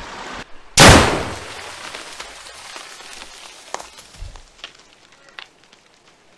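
Tannerite charge detonating in a beaver dam: one sharp, very loud boom about a second in that dies away over about a second, followed by scattered patters of mud, sticks and water falling back for a few seconds.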